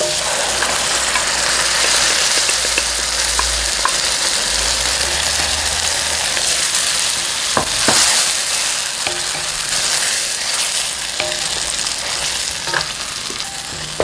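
Diced onions sizzling in olive oil in a stainless steel pan, stirred with a wooden spatula, with chopped tomatoes in the pan by the second half. A couple of sharp knocks come about halfway through, the loudest moment, and the steady sizzle runs on under the stirring.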